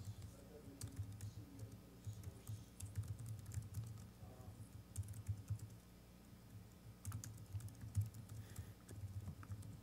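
Typing on a laptop keyboard: irregular runs of light key clicks, thinning out briefly about six seconds in.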